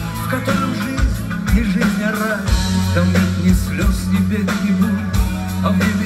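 Live rock band playing a song, with a steady drum beat under electric bass and melodic guitar or vocal lines.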